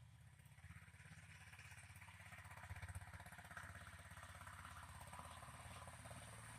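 Homemade tractor's single-cylinder Honda GX engine running with an even, rapid beat, faint and slowly getting louder.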